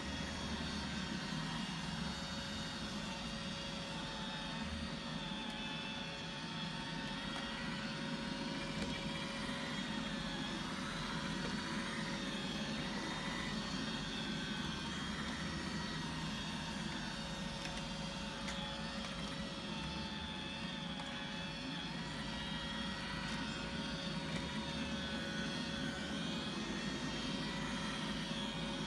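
Roomba robot vacuum running: a steady motor hum with a constant thin whine.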